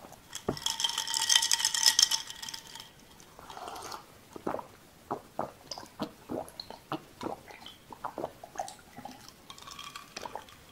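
Ice cubes clinking and rattling against a glass of cola for a couple of seconds as the glass is lifted. Then a run of quick gulping swallows as the cola is drunk close to the microphone.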